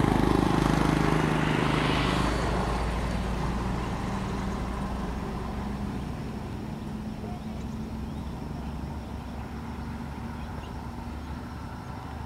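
Diesel locomotive engine running with a steady low drone, growing steadily fainter as the train moves away.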